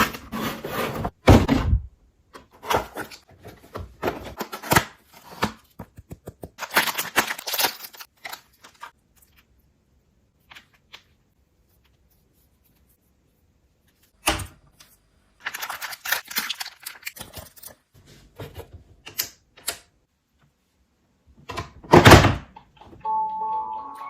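Plastic toy and its packaging being handled and opened: irregular clicks, taps and short rustles, with two louder knocks, one about fourteen seconds in and one near the end. Background music with steady tones starts just before the end.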